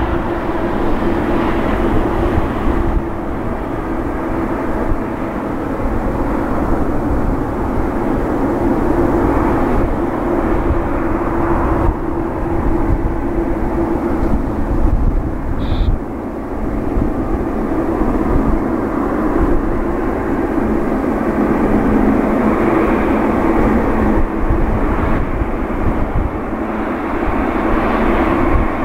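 Boeing 787-8 jet engines running at low taxi thrust: a steady, even drone with a held mid-pitched hum as the airliner taxis toward the runway.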